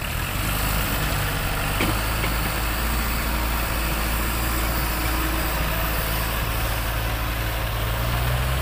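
Kubota MU4501 tractor's four-cylinder diesel engine running steadily under load as it pulls a trailer heavily loaded with mud.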